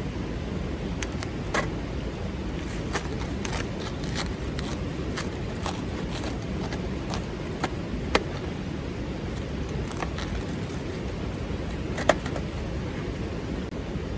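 Wood campfire crackling, with irregular sharp pops over a steady low rushing background.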